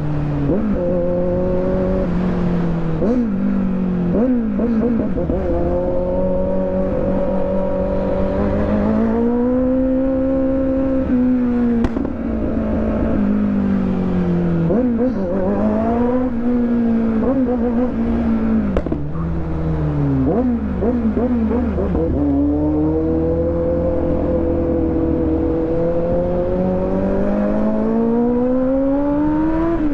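Kawasaki motorcycle engine running under way, its revs climbing and falling again and again, with several quick dips in pitch as it changes gear. A steady low rumble lies underneath.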